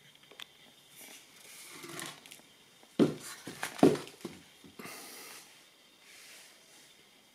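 Handling noises: rustling, with two dull knocks about a second apart roughly three seconds in, followed by smaller knocks and more rustling.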